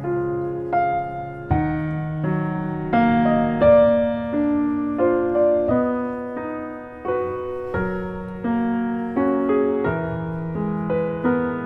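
Background piano music: a slow, gentle piece with a new note or chord struck about once a second, each fading away before the next.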